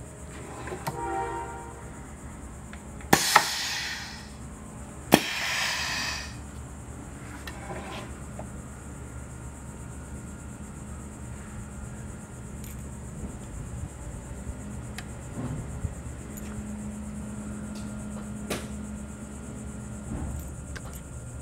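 Pneumatic hot stamping press cycling: two sharp clacks about two seconds apart, each followed by a short hiss of air. Small clicks follow as needle parts are handled in the metal fixture tray.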